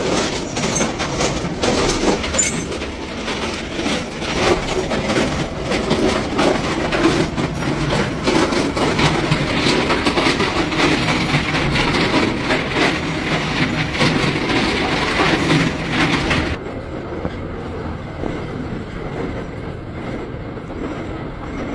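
Continuous machine clatter with dense crackling. About sixteen and a half seconds in, the high crackle cuts out suddenly and a lower, quieter running noise goes on.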